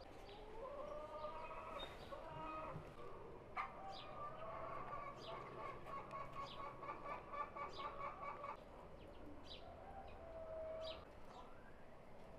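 Chickens clucking, faint, with a long run of rapid pulsed clucks in the middle.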